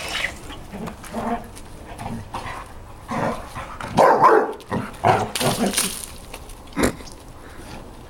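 Pet dogs barking and yipping in short, irregular bursts, loudest about three to six seconds in, with a single sharp knock near the end.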